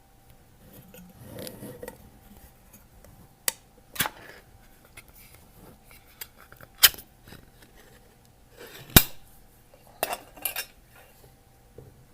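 Metal cans being opened: soft handling rustles and a series of sharp metallic clicks and cracks, about half a dozen, the loudest about seven and nine seconds in.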